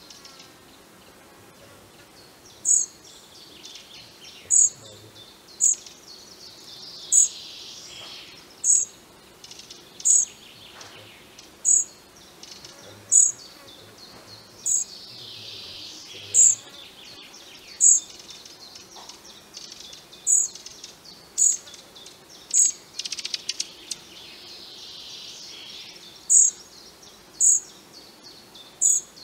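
Fledgling European pied flycatcher giving short, high-pitched begging calls, one every second or so with one longer pause, asking to be fed.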